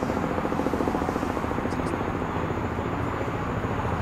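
Antonov An-70's Progress D-27 propfan engines running, their counter-rotating eight- and six-blade propellers giving a steady drone with a fast, even chopping beat.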